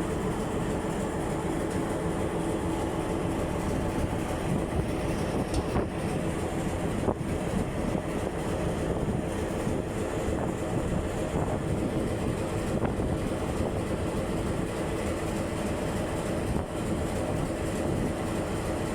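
Diesel locomotive engine running steadily with an even hum, with a couple of brief knocks about six and seven seconds in.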